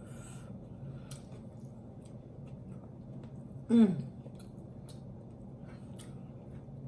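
Close-up eating sounds from a sauce-covered roast chicken eaten with bare hands: soft wet chewing and small sticky clicks. A short falling voiced 'mm' about four seconds in.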